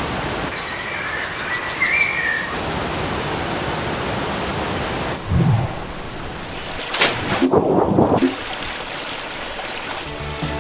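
Small waterfall pouring over rock into a pool, a steady rush of water. A short, louder burst of some other sound comes about seven seconds in.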